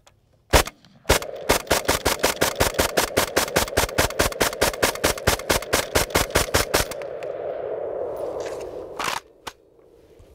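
FN FS-2000 5.56 mm bullpup rifle firing tracer rounds: a single shot, then a fast, even string of shots at about seven a second for some six seconds, followed by a lingering rumble after the last shot and one more sharp report near the end.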